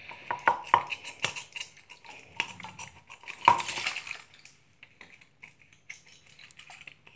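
A stirring stick knocking and scraping inside a plastic cup as slime is mixed: a quick run of clicks and taps with a louder rasp about three and a half seconds in, then only a few scattered ticks.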